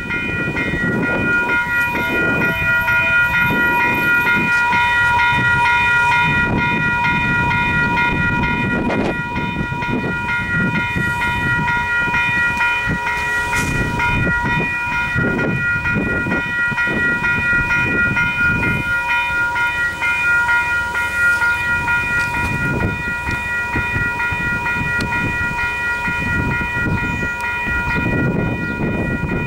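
Western Cullen Hayes electronic level-crossing bells (e-bells) ringing continuously on their quiet setting, a steady repeated ding, with an uneven low rumble underneath.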